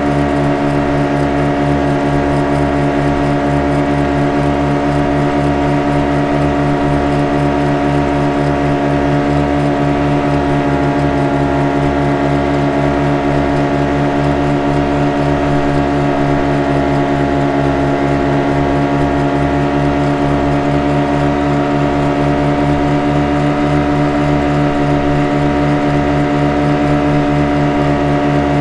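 Motorboat engine running steadily at constant speed. It is an even, unchanging drone with a fast low pulsing.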